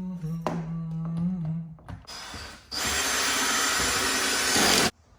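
A man hums a held note for about two seconds. Then a power drill runs for about three seconds, starting with a short burst, running on at full speed, and stopping abruptly near the end.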